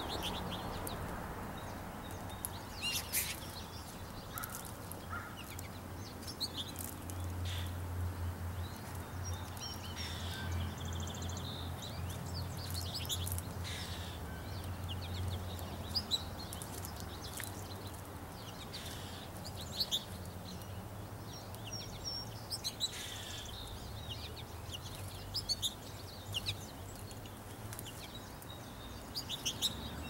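Small songbirds chirping: scattered short, high chirps and calls, irregularly spaced, over a low steady hum.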